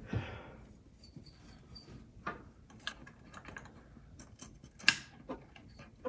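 Scattered small clicks and taps, the loudest about five seconds in: a replacement SSD module being fitted into the M4 Mac mini's drive slot by hand.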